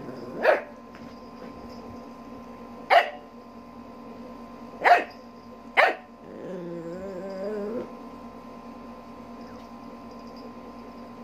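Shih Tzu puppy barking four short, sharp barks spread over about six seconds, play-soliciting barks to get its owner up to play.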